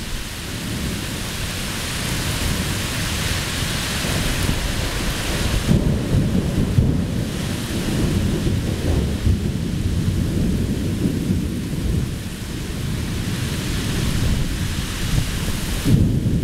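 Torrential rain pouring down steadily, a dense hiss, with a strong low rumble that swells and fades underneath it.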